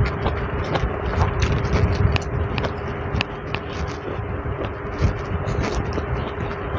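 Close-up eating sounds: chewing boiled broccoli and green beans, with short clicks of a metal fork against a plate, over a steady background hum.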